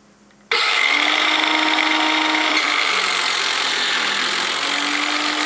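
A cordless 14.4 V chip-saw cutter (circular saw) starts suddenly about half a second in and runs loudly, cutting through a board. The motor's pitch sags around the middle of the cut under load and comes back up near the end, as the freshly rebuilt battery pack drives it.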